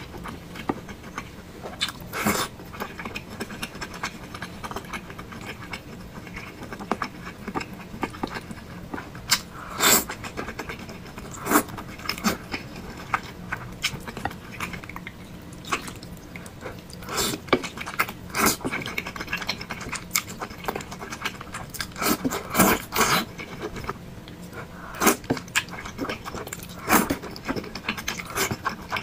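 A person chewing and biting into thick noodles and meatballs, with irregular sharp, short mouth smacks and clicks over a steady low background.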